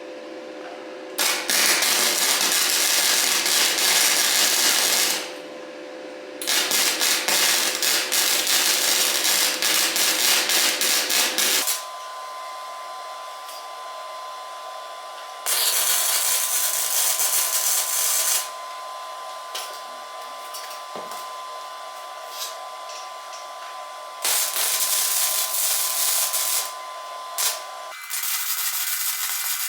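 Arc welding on steel trampoline-frame tubing: a series of crackling, sizzling welds a few seconds each, with a steady welder hum between them.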